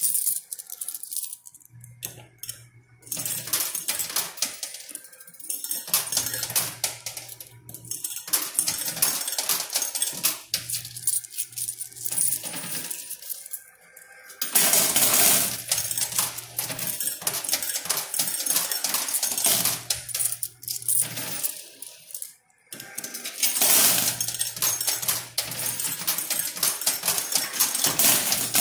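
Quarters clinking and clattering in a coin pusher machine as coins drop onto the playfield and are shoved along by the moving pusher shelf, with two heavier rushes of coins spilling, about halfway and again near the end. A low hum comes and goes every few seconds.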